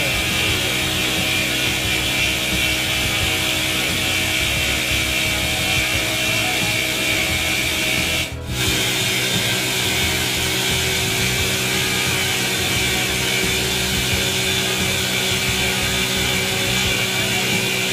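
Poseidon CNC stone router's spindle cutting a stone slab: a steady, high-pitched cutting noise with a constant hum under it, broken by a brief gap about eight seconds in.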